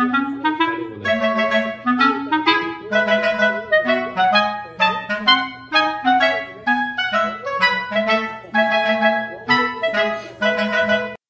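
Light background music: a melody of short, bouncy notes over a bass line, stopping suddenly near the end.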